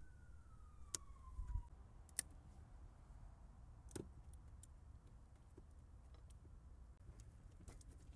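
Quiet hand work on a car: a few faint clicks and knocks of parts and tools being handled, the loudest about two seconds in. In the first two seconds a faint wailing tone falls in pitch and fades out.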